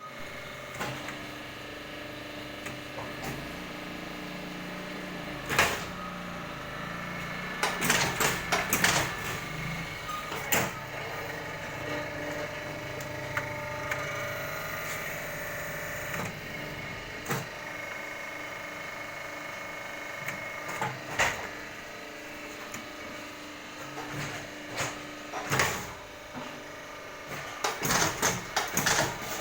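Gallon-cap machine running with a steady hum. Sharp clacks and knocks come every few seconds, with bursts of rapid clacking twice, once about a third of the way in and again near the end.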